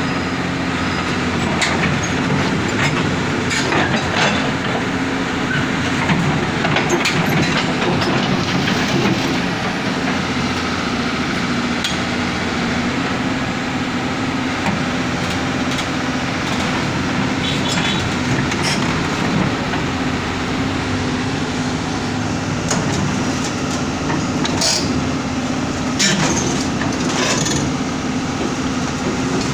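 Crawler excavator's diesel engine running steadily, with scattered clanks and knocks of steel parts as its boom and bucket are worked.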